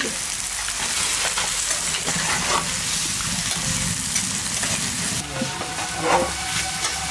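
Chicken pieces and green papaya sizzling as they fry in a metal kadai, stirred and scraped with a spatula.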